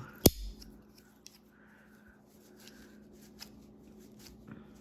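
A single sharp metallic click from a Leatherman Surge multitool a moment in, followed by faint small clicks and rubbing as the tool is handled.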